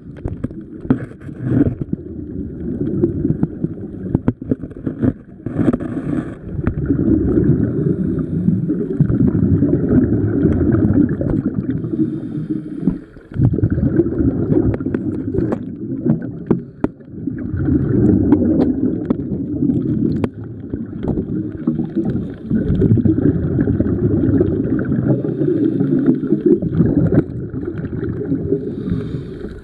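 Muffled underwater noise picked up by a camera below the surface: a low, shifting rumble and gurgle of moving water, with scattered faint clicks.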